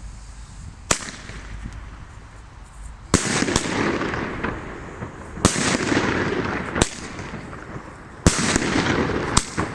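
Multi-shot consumer firework battery going off. A sharp bang about a second in, then launches every one to two seconds, each followed by a noisy rush.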